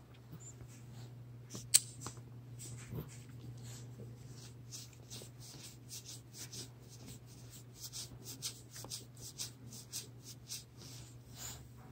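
Soft, quick, irregular scraping and smacking sounds of a baby being spoon-fed ice cream, with one sharp click about two seconds in, over a low steady hum.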